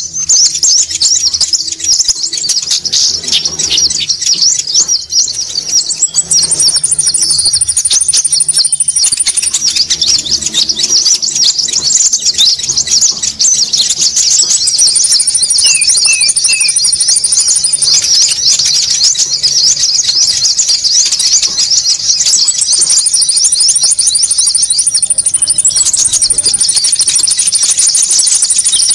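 Loud, dense high-pitched chattering of konin bird calls from a bird-luring recording, many rapid chirps overlapping without a break. A thin, steady, very high whistle comes in and drops out several times.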